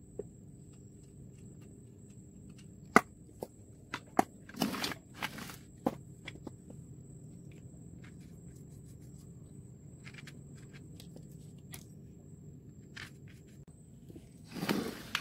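Sharp clicks and knocks of a chainsaw's plastic housing and handle parts being handled and fitted together by hand, mostly between about three and six seconds in, with a few lighter ticks later and a rustling scrape near the end.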